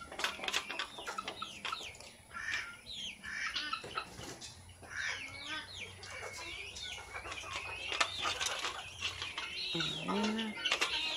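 Chickens clucking, with many short high calls throughout, and a few sharp taps of beaks pecking bread on concrete.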